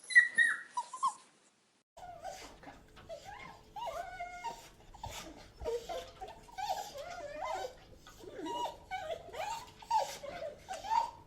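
Dogs whining and whimpering: a short high whine that falls in pitch, then, after a brief gap, a long run of repeated short whimpers and cries that bend up and down in pitch.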